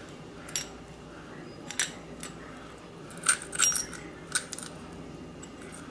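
Light clicks and clinks of a small lamp's metal bulb socket and cord being handled and pushed through a plastic base, about eight scattered taps with a quick cluster a little past halfway.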